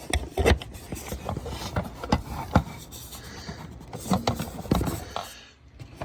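Handling noise from a plastic smoke alarm being picked up and moved about: scattered light knocks and taps with rubbing and rustling between them.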